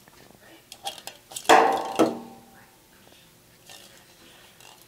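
A puppy's claws clicking and skittering on a tiled floor as it scrambles after a light plastic ball, with a loud knock and brief rattle about a second and a half in and a second knock just after.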